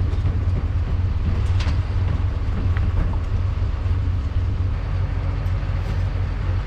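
Steady low engine rumble of a running vehicle, with a few faint clicks.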